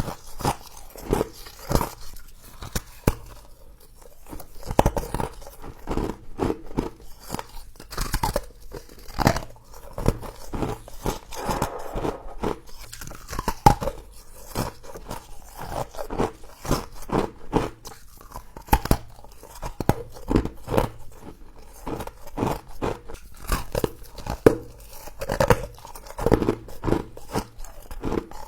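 Close-up crunching and chewing of mouthfuls of humidifier-grown freezer frost: a dense, irregular run of sharp crisp crunches.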